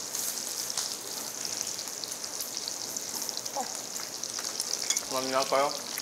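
Grilled beef and pork intestines (gopchang, daechang) sizzling on a tabletop grill plate, a steady high hiss with scattered crackling pops of rendering fat.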